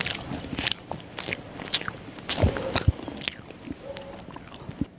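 Close-miked chewing of a mouthful of chicken liver curry with rice, with irregular wet mouth clicks and smacks. The sounds stop abruptly at the end.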